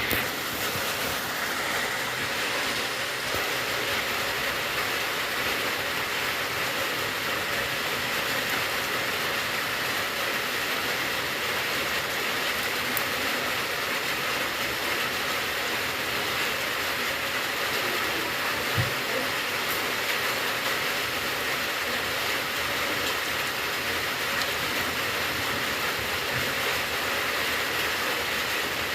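Steady rain falling, an even hiss that does not let up, with a single low knock a little past halfway.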